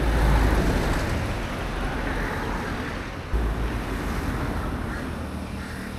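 Road traffic passing close by, a steady rush of tyre and engine noise, with wind rumbling on the microphone in gusts near the start and again about three seconds in.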